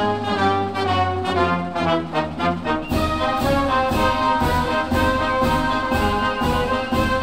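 Brass-led instrumental music, with a steady beat of about two strokes a second coming in about three seconds in.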